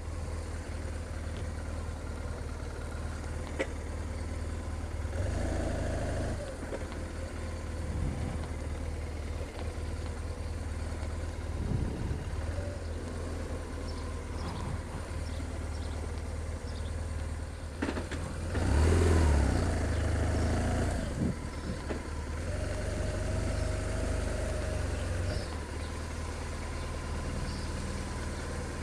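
A BMW R1200 R's boxer-twin engine running at low road speed, with the revs rising and falling several times as the throttle is opened and closed. The biggest swell in revs comes about two-thirds of the way through.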